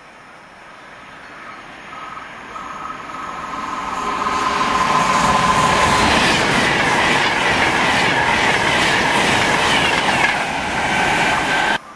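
Virgin Trains Class 390 Pendolino electric train approaching and passing at high speed on the 125 mph fast line. A rush of wheel and air noise builds over about five seconds and stays loud while the train passes, with a dense rattle of wheels on the track. It cuts off suddenly near the end.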